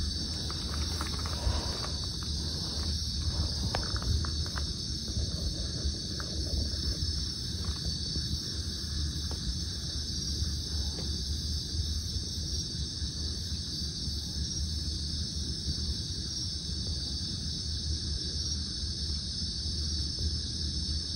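A steady chorus of night insects, a continuous high-pitched trill, with a few faint clicks in the first few seconds.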